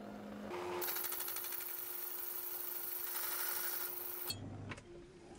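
Myford ML7 lathe running as a boring bar cuts the inner rim of a cast iron flywheel: a steady hum with the hiss of the cut. It stops abruptly about four seconds in, leaving quieter sound with a few faint clicks.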